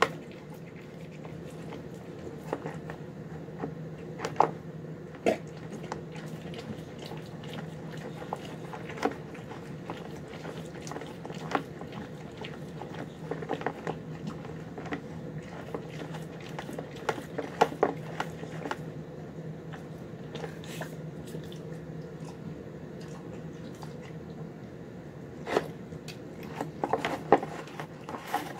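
A dog eating wet, sloppy food (chicken, brown rice, egg and vegetables) from a plastic bowl: irregular wet smacking, chewing and lapping, with many small clicks of jaws and food against the bowl, busiest near the end.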